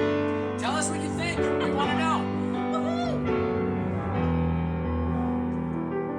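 An acoustic ballad arrangement: a singer's voice with wide vibrato over sustained piano chords. The voice stops a little over three seconds in, and the piano chords play on alone.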